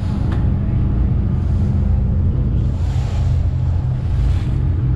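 A car ferry's engine running with a steady low drone, with wind rushing over the microphone in gusts about three and four seconds in.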